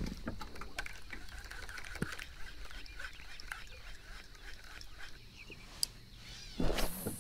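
Marsh ambience with low animal calls and scattered light clicks, then a brief loud rush of noise near the end.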